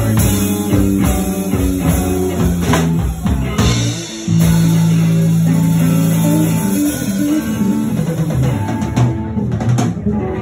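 Live band playing an instrumental passage: electric guitar over bass and drum kit, with a long held low note about halfway through.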